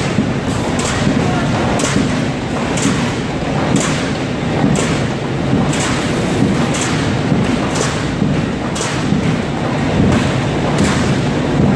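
Five-colour flexo printing machine for corrugated cartons running: a steady heavy mechanical rumble with a sharp slap about once a second as each corrugated sheet is fed through and discharged onto the conveyor.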